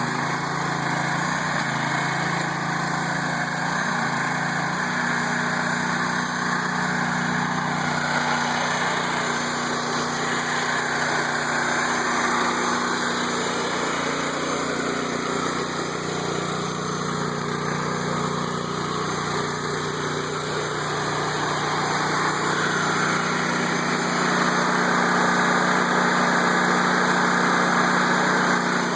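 Small engine of a towable backhoe running steadily, its pitch shifting a few times and getting slightly louder near the end.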